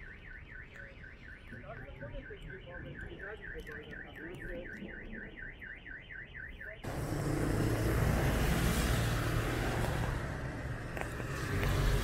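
Car alarm warbling rapidly, about four sweeps a second, set off by a thunderclap. About seven seconds in it stops abruptly and loud noise of heavy rain and hail takes over, with a low steady rumble beneath.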